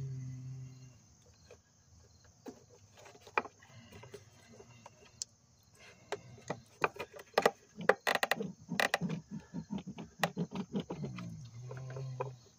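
Plastic engine air intake duct being worked loose and slid off by hand: a run of plastic clicks, creaks and knocks, densest in the second half. A short low hum sounds at the start and again near the end.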